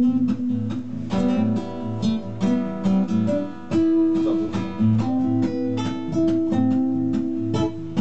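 Solo acoustic guitar playing an instrumental passage, a run of plucked notes over recurring bass notes.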